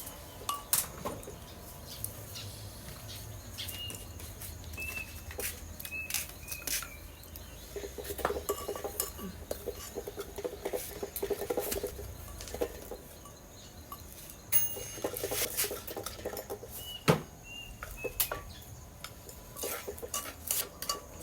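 Cutlery clinking and tapping against plates and bowls during a meal, in many scattered sharp clicks.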